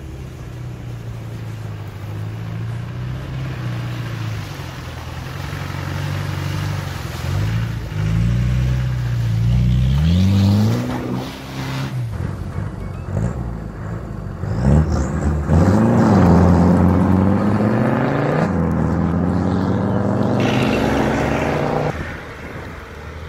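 Land Rover Discovery engine working hard off-road, revving up and down repeatedly. About fifteen seconds in the revs climb sharply and stay high while the wheels spin in loose dirt on a slope, then the sound drops off abruptly near the end.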